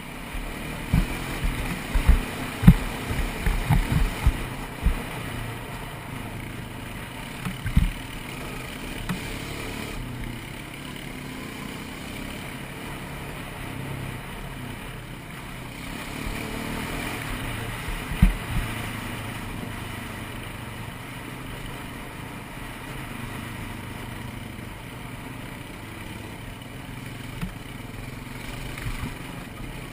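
ATV (quad) engine running steadily while riding a trail, with several sharp low thumps, mostly in the first five seconds and again around eight and eighteen seconds in.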